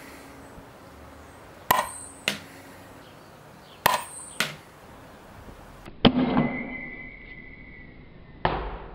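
Sharp cracks of a 40MAX compressed-air 40mm grenade engine firing darts, four times about two seconds apart. The first two are each followed about half a second later by a fainter knock. After the third, a high steady ringing tone lasts about two seconds.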